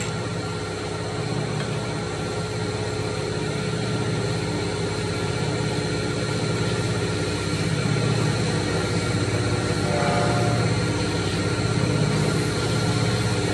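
Wood copy lathe's electric motor running with a steady hum, growing a little louder over the stretch.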